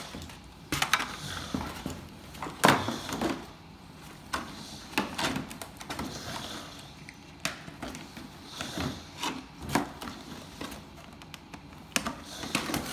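Irregular clicks, taps and rustles of stiff clear plastic toy packaging being handled and cut with scissors, with a louder knock about three seconds in.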